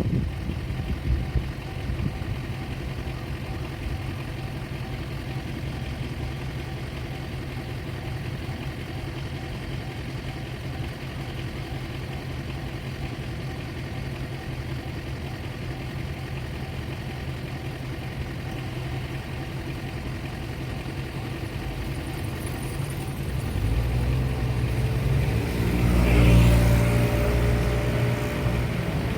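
Road traffic: a steady low engine hum, then a motor vehicle passes close by, growing louder to a peak about three-quarters of the way through before easing off.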